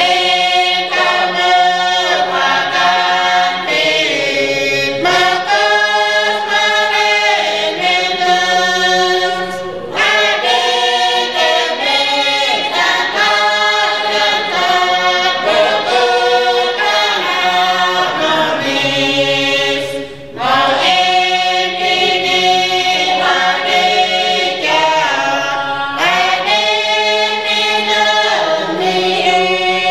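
Small choir singing unaccompanied in harmony, in long phrases with a brief pause about ten seconds in and again about twenty seconds in.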